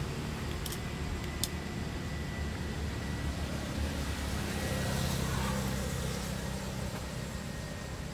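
A low, steady mechanical rumble, like a motor vehicle's engine running, with two faint clicks in the first second and a half.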